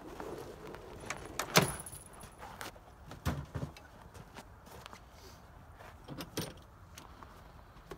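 Clanks, knocks and metal rattling from a SnowDog tracked power unit being slid out of an SUV's cargo area and tipped down to the ground. A sharp clank about a second and a half in is the loudest, with further knocks around three and a half and six seconds in.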